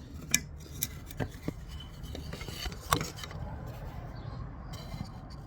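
A series of sharp knocks and light clatter, with a brief scrape about two and a half seconds in, as wood pieces and tools are picked up and set down on a workbench.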